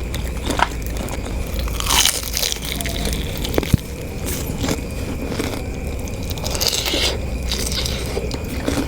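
Close-up biting and chewing of a jumbo cireng, a fried tapioca snack, with a few louder crunchy bites about two seconds in and near seven seconds.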